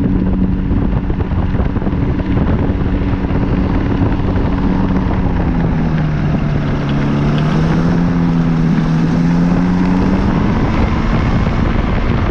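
Rotax 503 two-cylinder two-stroke engine of a Phantom X1-E ultralight running steadily under power. About six seconds in its note drops lower, as on a throttle reduction, and comes back up a little near ten seconds.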